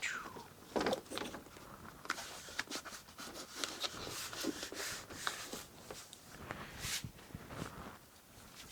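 Scattered light clicks, taps and brief rustles of hand work and movement, with no power tool running.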